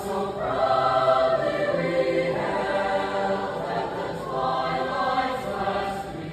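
High school concert choir singing in held, sustained chords that change every second or two.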